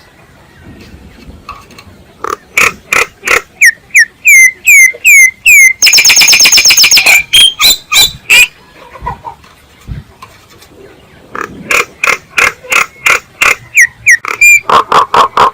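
Myna (chim sáo) giving loud, repeated sharp calls, some with a hooked drop-and-rise in pitch, breaking into a harsh rasping chatter midway, pausing, then starting a fresh run of calls.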